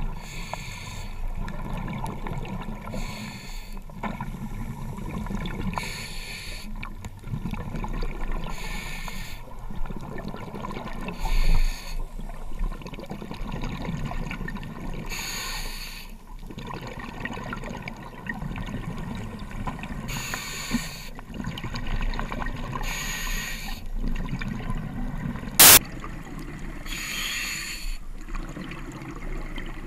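Scuba diver breathing through a regulator, heard underwater: a rush of exhaled bubbles every two to four seconds, nine in all, over a low muffled rumble. One sharp click about 26 seconds in.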